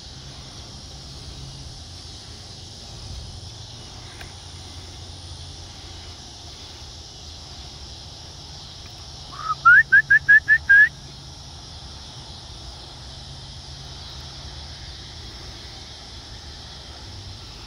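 Steady outdoor hiss, broken about ten seconds in by a loud, quick run of six short rising whistled notes lasting about a second and a half.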